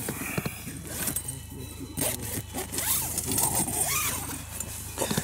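Rustling of nylon tent fabric and sleeping gear, with irregular scrapes and clicks as someone rummages for things inside a small tent.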